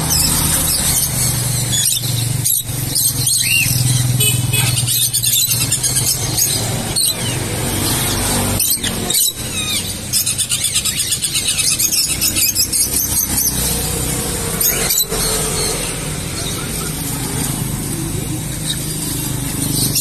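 A group of young lovebirds squealing and chirping in short, high, repeated calls, with a fast run of chattering calls a little past halfway. A steady low hum runs underneath.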